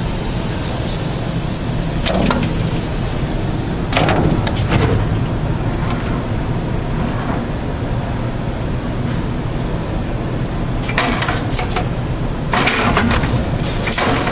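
Matrix Elete quad-seal vertical form-fill-seal bagging machine running a few cycles: irregular short bursts of mechanical noise over a steady low hum, clustered about two and four seconds in and again near the end.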